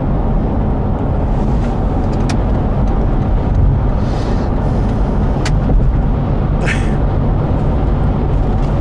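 Steady low rumble of a moving car heard from inside the cabin, with a few light clicks and brief rustles over it.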